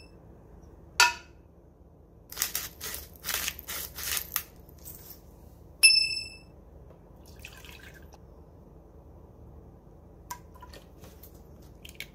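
Kitchen handling of a spoon and dry ingredients in a bread-machine pan: a click, then a quick run of scraping and rustling strokes. About six seconds in comes a short, bright ding, and faint small taps follow near the end.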